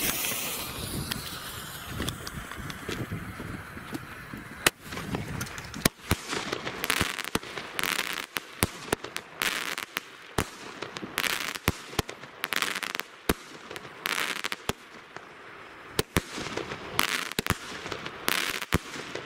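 Artus consumer firework battery (cake) firing: from about five seconds in, a rapid, uneven series of sharp shots, several of them followed by short bursts of hissing crackle.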